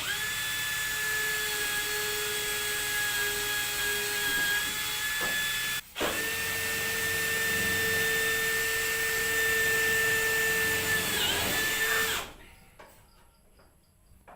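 Handheld electric power tool running at full speed with a high steady whine. It cuts out for a moment about six seconds in, runs again, then winds down and stops near the end.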